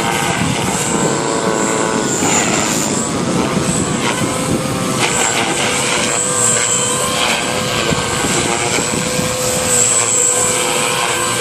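JR Forza 450 radio-controlled helicopter flying, its rotor and motor giving a steady whine that wavers slightly in pitch.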